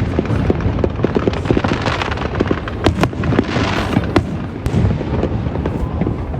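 Fireworks display going off in rapid succession: continual deep booms with sharp cracks, and a hissing, crackling burst swelling about halfway through.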